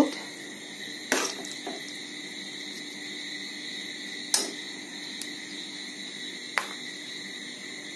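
A metal spoon clinking against an aluminium pan and a steel bowl while soft halwa is scooped and served: three sharp clinks a few seconds apart and a couple of fainter taps, over a steady faint high whine.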